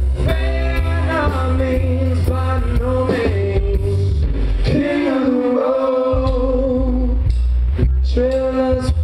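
Live country-rock band playing with upright double bass, drum kit and electric guitar, with a man singing held notes. The bass drops out for about a second midway.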